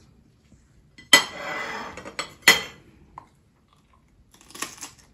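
Table knife clinking against a ceramic plate and scraping pâté across a cracker, with a sharp clink about a second in and another about halfway. Near the end there is a short crunch as the cracker is bitten.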